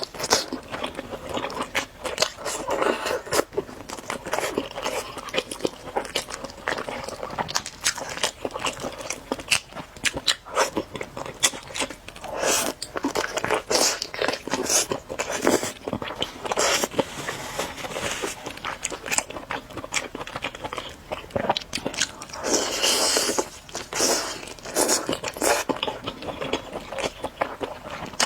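A person biting and chewing Orleans-style roast chicken drumsticks close to the microphone, with frequent irregular crunches.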